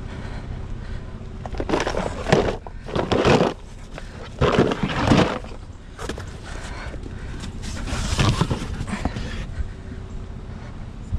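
Four bursts of cardboard rustling and scraping as a box of scavenged items is handled and loaded into the back of an SUV, over a faint steady hum.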